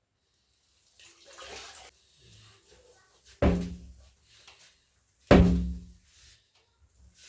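A short rush of noise, then two sudden loud knocks about two seconds apart, each ringing briefly as it fades.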